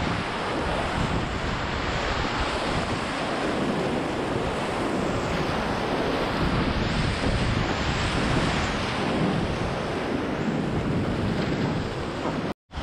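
Whitewater rapids of a river in high-water spate, rushing and churning around a kayak, heard close up from the boat as a steady loud roar. The sound cuts out for a split second near the end.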